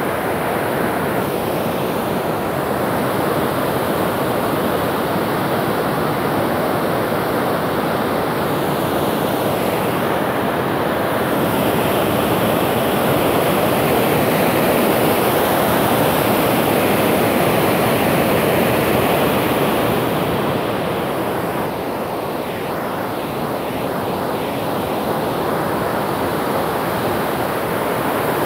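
Spring floodwater pouring through the open spillway gates of a hydroelectric dam: a steady, loud rush of churning water that swells a little midway.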